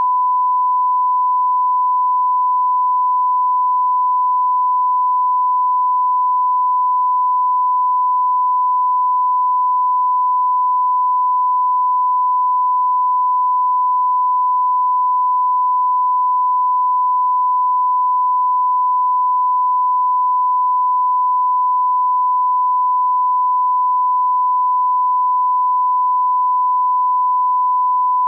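Broadcast 1 kHz line-up tone that accompanies SMPTE colour bars: one steady, unbroken pitch at constant level.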